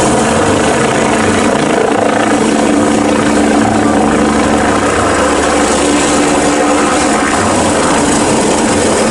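Helicopter sound effect: a loud, steady whir of rotor and engine with a constant hum.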